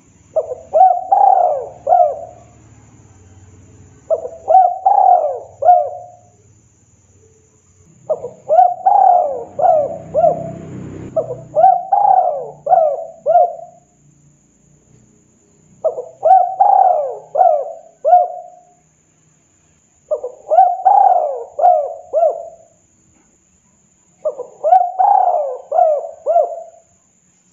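Spotted dove cooing: seven phrases of four or five quick rolling coos, each phrase about two seconds long, a couple of seconds apart.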